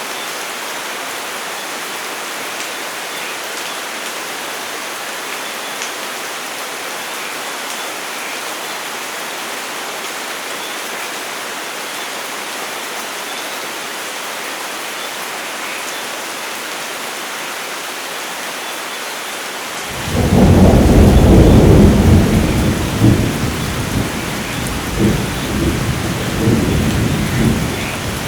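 Steady rain falling, then about two-thirds of the way through thunder breaks in suddenly and rolls on as a long, loud rumble that swells and fades several times.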